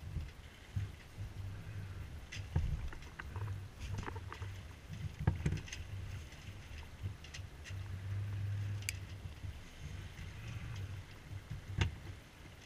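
A small sailboat under way under sail: a low, uneven rumble of water and wind against the hull and microphone, with scattered clicks and knocks from footsteps and gear on deck.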